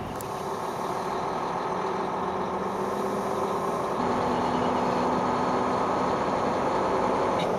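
Mack semi truck's diesel engine running steadily as the truck rolls slowly at low speed, heard from inside the cab, getting a little louder about halfway through.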